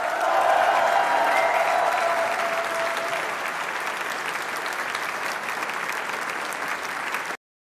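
Audience applauding, loudest in the first couple of seconds, then cut off abruptly near the end.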